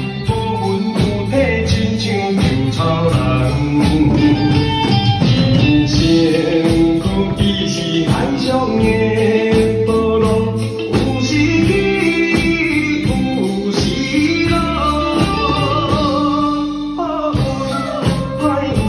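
Children playing drum kits along to a backing track of a song with singing and guitar, the drums keeping a steady beat. The music breaks off briefly near the end and comes back in.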